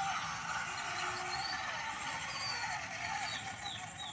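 Small electric gear motor of a wired remote-control toy wheel loader whining steadily while it pushes a toy dump truck, its pitch wavering up and down with the load.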